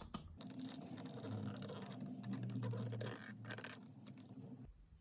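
Scratching and handling noise with a few small clicks as a wall light switch and its wires are pulled out of the electrical junction box, over a steady low hum. It cuts off abruptly near the end.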